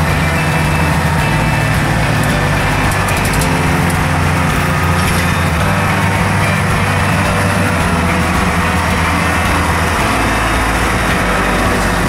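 Valtra tractor's diesel engine running steadily under load, driving a McHale Fusion baler-wrapper as it works through cut grass.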